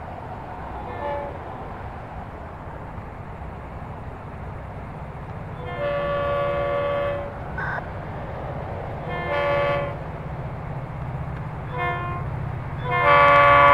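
Florida East Coast diesel freight locomotive sounding its multi-chime air horn for a road crossing. A long blast comes about six seconds in, a shorter one a few seconds later, a very short toot, then a long, loud blast near the end. A steady low diesel engine rumble runs underneath.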